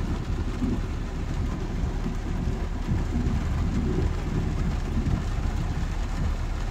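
Thunderstorm: steady rain with a low, continuous rumble of thunder rolling away, mixed with traffic on the wet road.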